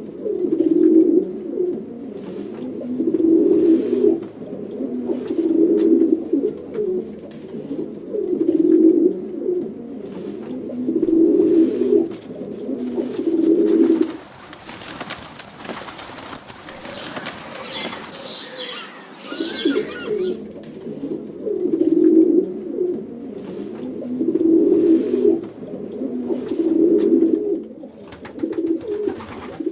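Pigeons cooing: low, throaty coos repeating every couple of seconds. About halfway through the cooing stops for around five seconds, leaving only a hiss-like noise, then starts again.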